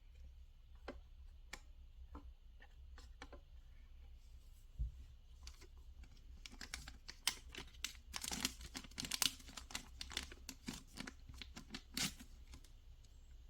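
Packaging being handled and opened: scattered light taps and clicks, then from about six seconds in a dense run of crinkling and tearing that stops shortly before the end.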